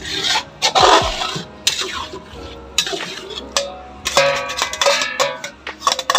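A metal spatula scraping and knocking against a steel pot and a steel wok, with irregular clanks and clinks, some of them left ringing, as the pot's contents are scraped out into the wok. Music plays underneath.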